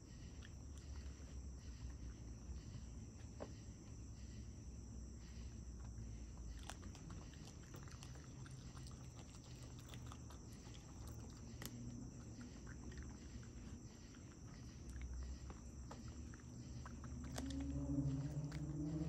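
Crickets chirping steadily in a pulsing rhythm, with scattered faint clicks and smacking from a raccoon eating close to the microphone. Near the end a louder low sound rises briefly in pitch.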